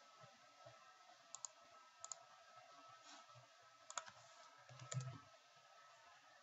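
Computer mouse buttons clicking, faint, about four times: each click is a quick double tick of press and release.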